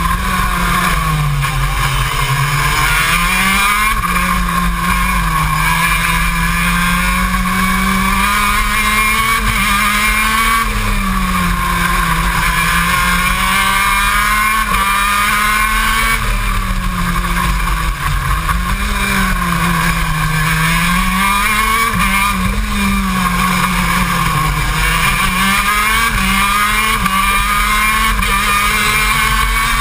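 KZ2 shifter kart's 125cc single-cylinder two-stroke engine running hard, close up from onboard, its revs climbing and then dropping sharply again and again through the lap.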